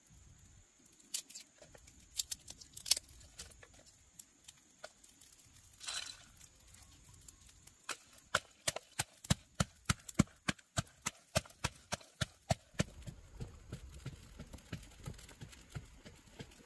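Scattered sharp taps, then about halfway through a quick, regular run of knocks, about four a second, lasting several seconds before easing into softer ticks.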